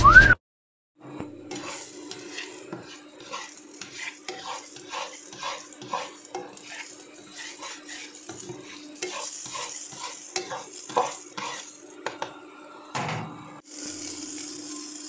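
Butter melting in hot oil in a non-stick frying pan, sizzling with a run of small crackles and pops over a faint steady hum. The sizzle grows louder near the end.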